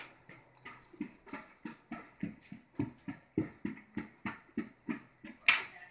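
Footsteps walking briskly, about three steps a second, with a brief louder noise near the end.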